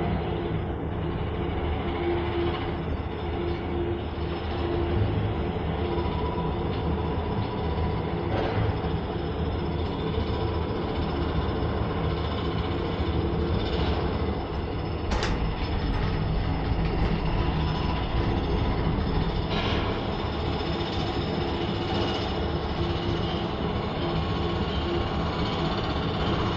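Steady mechanical rumble and hum of a cable car gondola riding along its cable, with one sharp click about halfway through followed by a few seconds of heavier low rumble.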